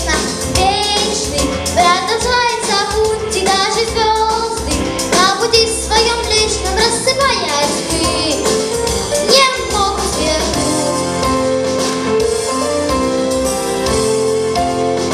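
A young girl singing a pop song over a backing track. Her voice stops about two-thirds of the way through, and the accompaniment plays on alone with keyboard as an instrumental interlude.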